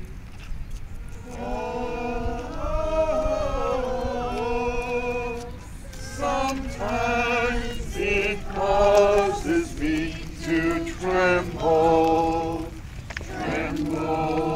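A group of people singing a hymn together as they walk, in phrases of long held notes with short breaks for breath.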